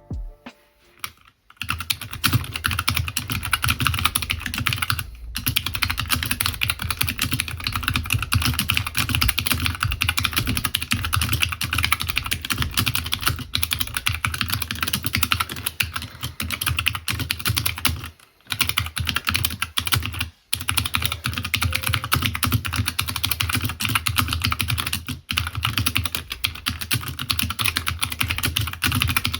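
Fast, continuous typing on a custom 60% mechanical keyboard with Hi-Tek 725 tactile switches, an O-ring-mounted aluminium plate, Harvest keycaps and a Holy60 polycarbonate case: dense key clacks with a few brief pauses. A few scattered clicks come first, and the steady typing starts about a second and a half in.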